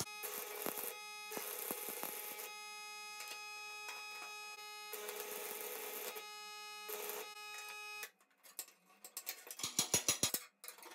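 Electric arc welding on steel flat bar in several short crackling bursts of about a second each, as tack welds, over a steady whining tone. After about eight seconds a run of sharp, irregular metal knocks follows.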